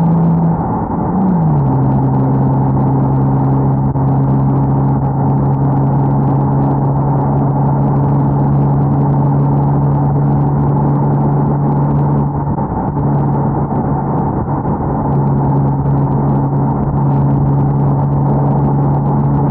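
Acura TL's V6 engine droning at steady revs under load. Its pitch drops about a second in, as at an upshift, then holds level, with a short dip a little past halfway.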